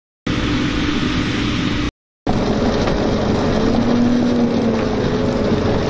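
A Ropa Tiger 6S sugar beet harvester running at work: a steady engine drone with a whining tone above it that wavers slightly in pitch. The sound cuts out briefly twice.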